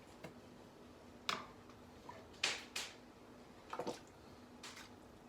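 A few short, light clicks and knocks from cookware being handled, the loudest about a second in and midway, over a faint steady hum.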